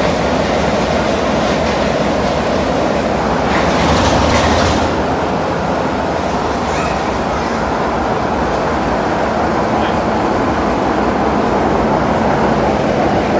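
Class 33 diesel locomotive's Sulzer eight-cylinder engine running with a loud, steady rumble. A brief louder rush of noise comes about four seconds in.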